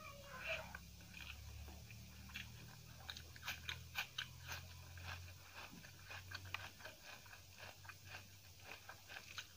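Close-up chewing of a mouthful of rice with crunchy bits, a stream of small, sharp crunches. A steady low hum runs underneath.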